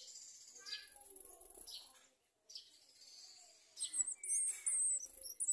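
Sunbird chirping: quick, thin, high warbling calls that start about four seconds in, over a faint hiss.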